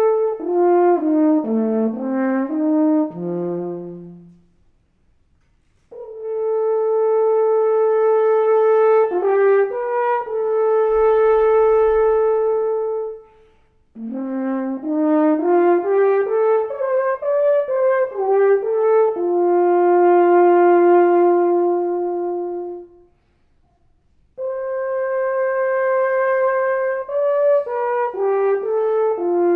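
Alphorn playing a solo of calls in four phrases, each ending in a short silence. The phrases mix runs of notes stepping down and up with long held notes.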